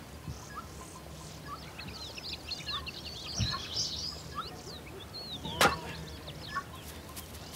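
Small birds chirping busily, with one sharp, loud crack of an axe striking firewood about five and a half seconds in.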